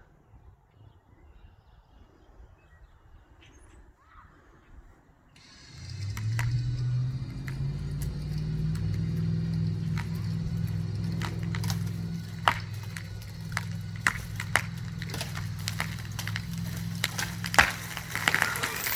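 An ATV starts running about five seconds in and holds a steady note as its winch pulls the leaning pine. Sharp cracks and snaps come more and more often over the second half, ending in a loud crash.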